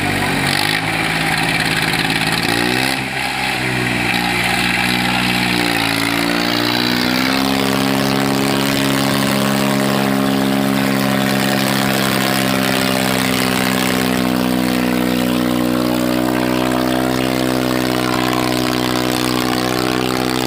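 Swaraj 744 FE tractor's three-cylinder diesel engine revving hard under heavy load while dragging a harrow through sand. Its pitch dips and climbs twice in the first few seconds, then settles at high revs and holds steady, edging up a little past the middle.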